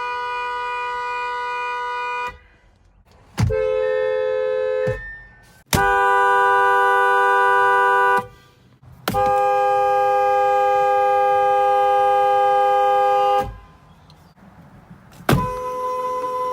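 Car horns from several different cars, one long steady blast after another with short gaps between them. The blasts last from about one and a half to four seconds, and the pitch changes a little from one horn to the next.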